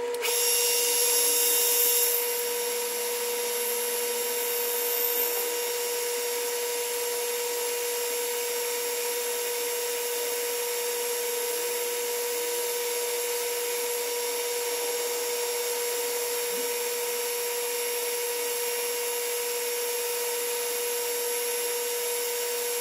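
Metal lathe running in reverse, with a boring bar fed on the compound cutting an angled face onto a brass part: a steady high whine over a hiss of cutting, louder for the first two seconds.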